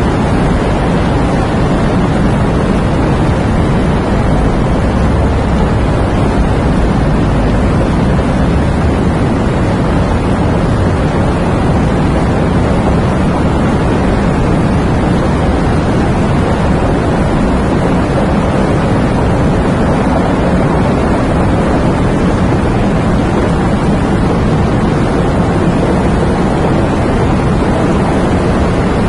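Heavy rain falling steadily, a dense even rush with its weight in the low end and no break or change.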